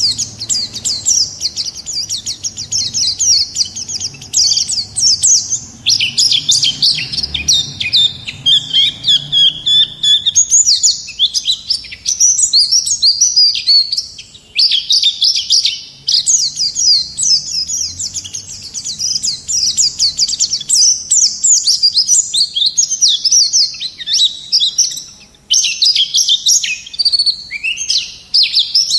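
White-eye (pleci) singing a fast, unbroken run of high twittering and chattering notes, in full song. Short pauses come about halfway through and again near the end.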